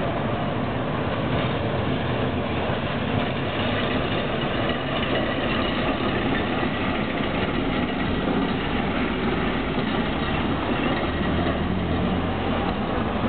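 A tram drawing up and then standing with a steady hum, mixed with street traffic noise. A deeper low hum grows stronger about eleven seconds in.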